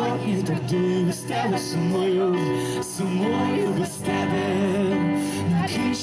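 A man singing with vibrato, accompanying himself on a Yamaha digital piano.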